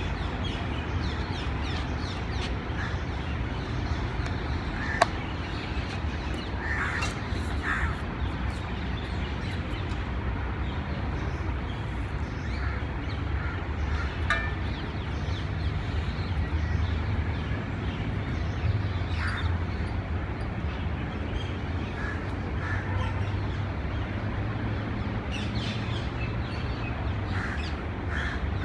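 Birds calling now and then over a steady low outdoor rumble, with one sharp click about five seconds in.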